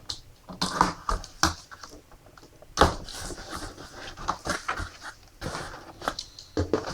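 Packaging being handled as a laptop is unboxed: irregular crinkling and rustling with sharp clicks and scrapes, the loudest about three seconds in.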